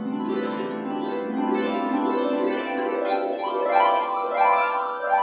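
Plucked harp music, many notes ringing together, with several quick rising runs in the second half.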